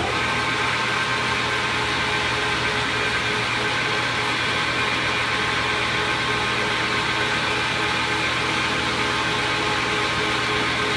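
Metal lathe running steadily with a constant mechanical hum and hiss.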